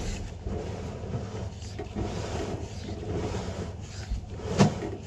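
Rubbing and scraping as a drain inspection camera's push rod is fed into a drain pipe, with scattered small knocks and one sharp knock about four and a half seconds in.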